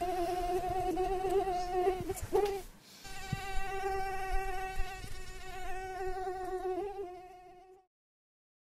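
Mosquito whine: a steady, slightly wavering buzzing tone that breaks off about two and a half seconds in with a brief rise in pitch, returns half a second later, then fades out near the end.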